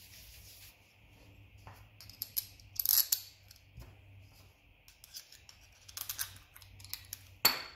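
Paper towel briefly wiping dust off a plastic outboard fuel pump part, then the small plastic pump parts being handled, with scattered rustles and light clicks and one sharp click near the end.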